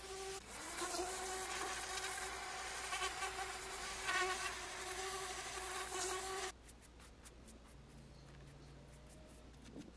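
Ryobi electric pressure washer running: a steady motor whine over the hiss of the water jet striking the rubber roof. It stops abruptly about two-thirds of the way through, leaving only a few faint ticks.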